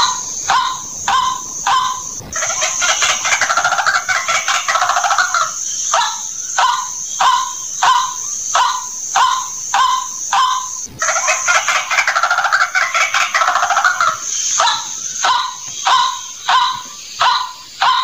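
White-breasted waterhen calling, played as a lure call: a run of loud repeated notes about two a second, broken twice by a rapid, dense chattering passage lasting a few seconds.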